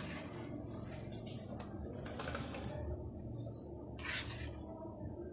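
Ladle scraping and scooping through thickened milk in a nonstick wok: a handful of short, soft scrapes and sloshes, over a low steady hum.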